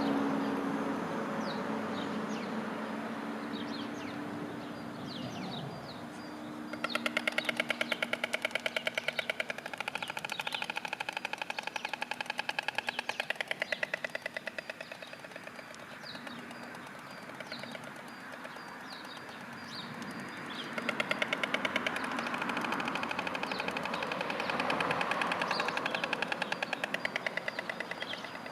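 A pair of white storks clattering their bills together on the nest in two long, very fast, rattling bouts, a greeting display between mates. Passing road traffic is heard at the start, and small birds chirp throughout.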